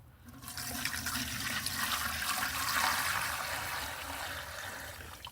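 Water being poured into the water chamber at the bottom of a solar soil-steaming pot. The pour splashes steadily for about five seconds, swells in the middle, and stops just before the end.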